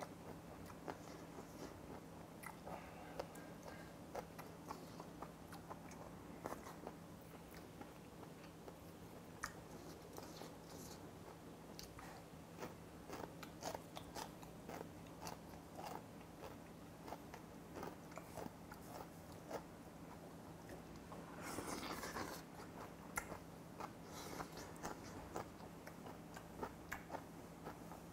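Close-up mouth sounds of a man eating jjamppong noodle soup with chopsticks: many small chewing clicks and smacks, with a longer, louder noisy spell about three-quarters of the way through.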